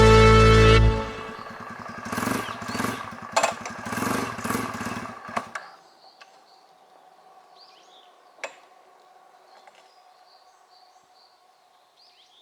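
Motorcycle engine running with several quick blips of the throttle, then switched off about six seconds in. Afterwards faint chirping calls and a single sharp click.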